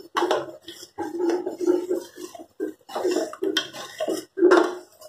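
Spatula stirring and scraping thick curry masala paste as it fries in a steel pot: repeated squelching strokes, about one a second with smaller ones between.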